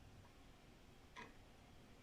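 Old wall clock ticking quietly, about one tick a second, a faint tick followed by a stronger tock about a second in.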